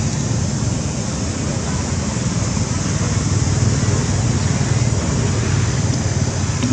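Steady low rumbling background noise, with no distinct animal calls.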